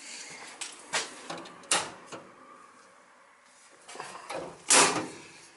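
A few scattered knocks and clicks, then a louder sharp snap near the end: a circuit breaker being switched on to power the new gas boiler.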